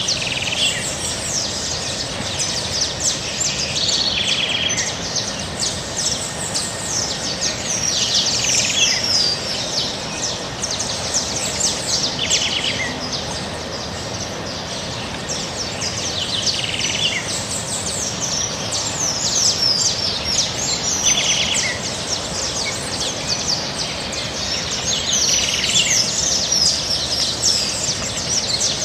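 Birds chirping and calling continuously in many quick repeated notes, over a steady background noise.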